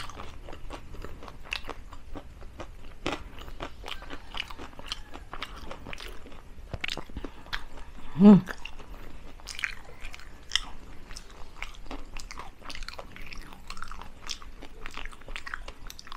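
Close-miked chewing of crispy deep-fried chicken feet, bones and all, with many small crunches throughout. A short hummed vocal sound about eight seconds in.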